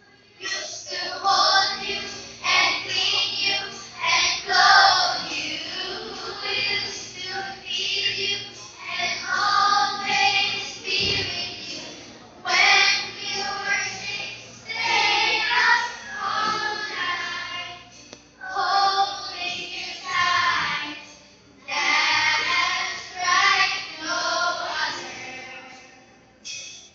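A group of children singing a song together, in phrases separated by short pauses.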